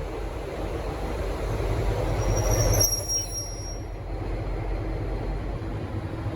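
V/Line N-class diesel locomotive moving over the rails with a low engine rumble. The running noise builds for about three seconds and then drops suddenly, while a high-pitched wheel squeal comes in about two seconds in and fades out about two seconds later.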